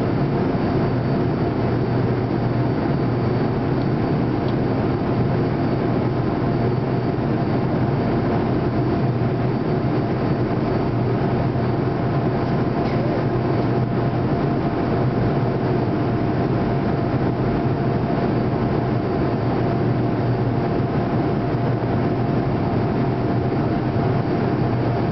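Steady cabin drone of an Avro RJ85 in flight: its four Honeywell LF507 turbofans and the airflow make an even rushing noise, with a few faint steady tones running through it.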